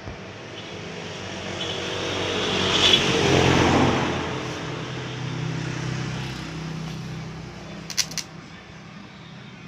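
A motor vehicle passing by: engine and road noise that swells to a peak about three to four seconds in, then slowly fades. Two sharp clicks come near the end.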